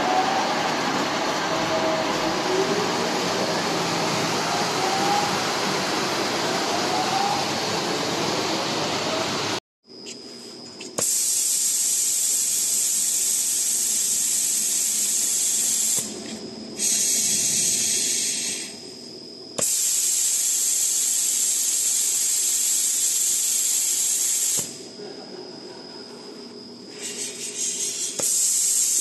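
Wide belt sander running with a dense mechanical noise. After an abrupt cut, a loud high hiss of compressed air blowing inside the machine, cutting out and coming back a few times.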